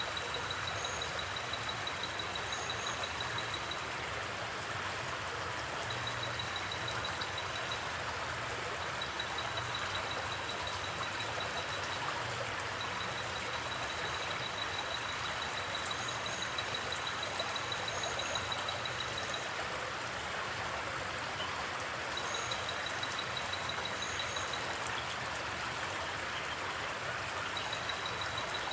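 Insect sound effect: a high, rapidly pulsing trill that comes and goes in stretches of a few seconds over a steady hiss, with a few brief higher chirps.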